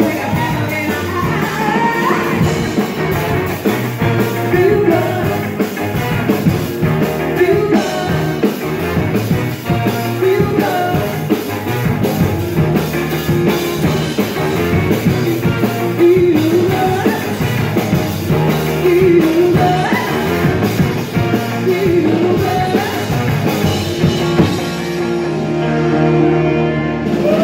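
Live band playing amplified: electric guitar, bass, drum kit and a horn section of trumpet, trombone and saxophone behind a woman's lead vocal. Near the end the drums drop out, leaving held notes.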